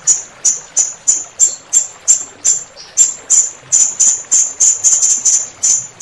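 Serindit (hanging parrot) giving a fast, even series of short, sharp, very high-pitched call notes, about three a second, over a faint hiss of flowing water.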